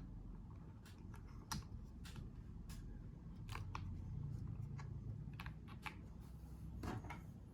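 Keys of a mechanical keyboard with tactile brown switches pressed one at a time: about a dozen separate, unevenly spaced clicks.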